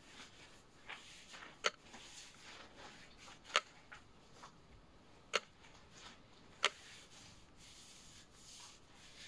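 Faint scratching and rubbing of a drawing tool on paper, broken by four sharp clicks at uneven intervals.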